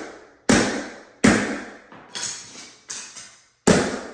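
Tack strip cutters tapping a short piece of wooden carpet tack strip laid on ceramic tile: five sharp knocks a little under a second apart, each with a short ring. The blows drive protruding nails back into the strip so it lies flat on the tile.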